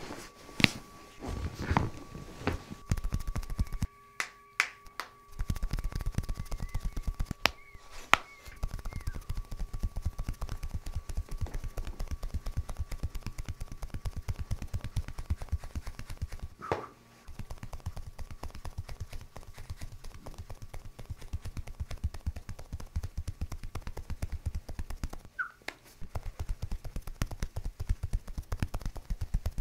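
Hands striking a bare back in fast, even percussion massage (tapotement), many light slaps a second, with a few brief pauses. The first few seconds hold slower, separate slaps.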